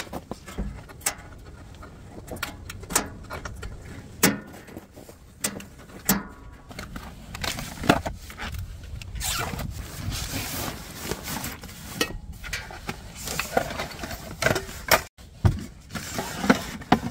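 Gear being handled at the back of an SUV: a series of clicks and knocks from the tailgate and cargo area, with stretches of fabric rustling as pouches on a seat-back organizer are opened and items pulled out.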